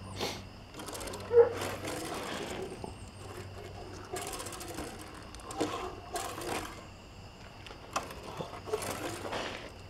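Die-cast toy cars rolling and being set down on plastic Hot Wheels track: a rattly whir of small wheels in several short runs, with a sharp click about eight seconds in.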